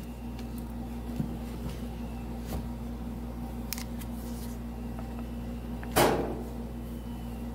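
Kitchen items being handled: a few light clicks and one sharp knock about six seconds in, over a steady low hum.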